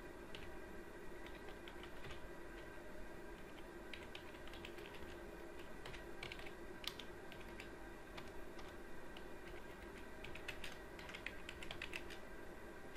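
Typing on a computer keyboard: faint, irregular keystrokes that come in quicker runs around the middle and again near the end, over a low steady hum.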